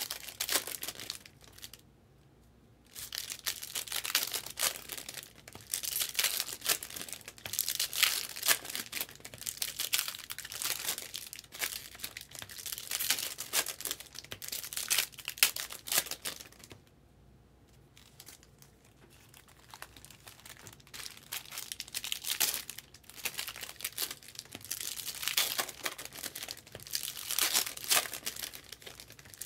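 Foil wrappers of Topps Chrome baseball card packs being torn open and crinkled, one pack after another, in quick runs of crackling with two short pauses, the first about two seconds in and the second a little past the middle.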